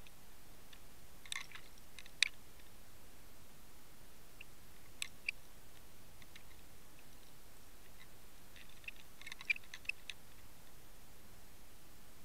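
Underwater ambience, a steady hiss, with scattered sharp clicks: a few about a second in, a couple around five seconds, and a quick patter of them around nine to ten seconds.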